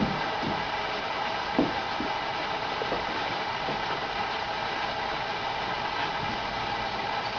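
Steady background hiss and hum, with a few soft knocks, the clearest about a second and a half in.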